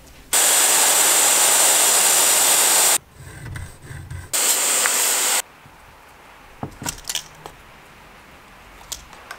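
Loud, steady hiss in two spells that start and stop abruptly, the first about three seconds long and the second about a second. A low hum comes between them, and a few light clicks and taps follow.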